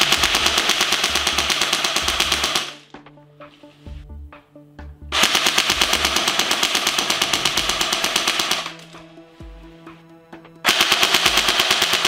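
CYMA CM032A airsoft M14, an electric gun with a metal version 7 gearbox, firing three long full-auto bursts of about three seconds each, with short pauses between them.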